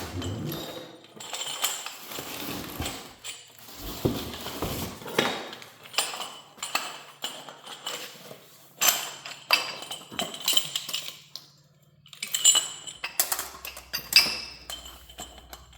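Hard parts and tools being handled during assembly of an irrigation injector manifold: an irregular run of clinks, clicks and knocks with short scrapes, and a brief lull about three quarters of the way through.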